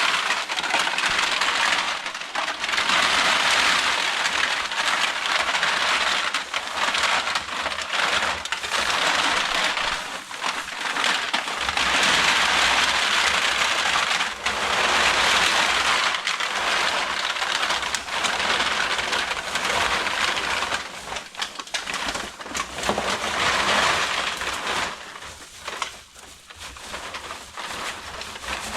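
Empty aluminum drink cans clattering and rattling against each other in a dense, continuous stream, as a mass of loose cans is poured out. It comes in long surges with short lulls and thins out near the end.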